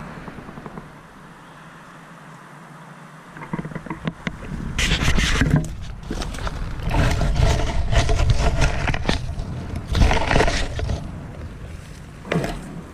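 Handling noise from a GoPro being set down among dry reeds: rustling and scraping against the camera in loud, irregular bursts from about five to eleven seconds in, and one more short knock near the end.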